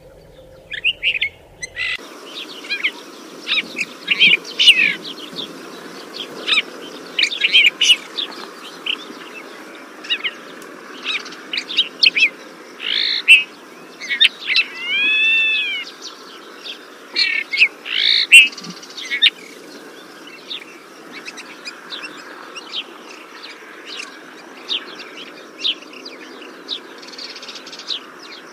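Desert finch singing: quick runs of short, high chirps and twitters, with a few longer notes that rise and fall around the middle, thinning to sparser, softer chirps in the last third. A steady background hiss comes in about two seconds in.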